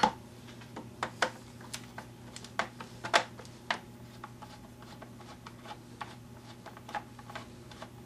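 Flat-head screwdriver loosening the screw that holds the plastic handle on an electric hedge trimmer: scattered light clicks and ticks at an irregular pace as the screw is turned and the tool is handled.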